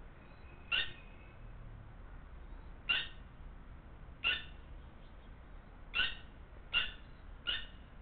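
Red-wattled lapwing (tateeri) giving short, sharp single call notes, six of them at uneven gaps of about one to two seconds.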